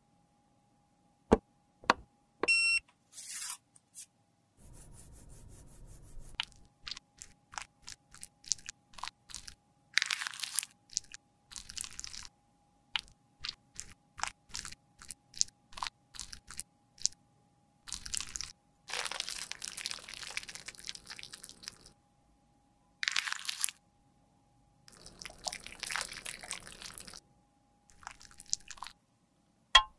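A lipstick bullet being cut with a blade and scraped with a metal spatula into a small glass beaker: sharp clicks and crackly crunching in separate bursts, each a second or two long, with pauses between.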